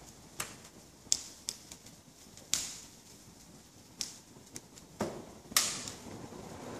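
Dry timber fires burning after a petrol start, crackling with sharp, irregular pops and snaps, about eight of them, the loudest about two and a half and five and a half seconds in.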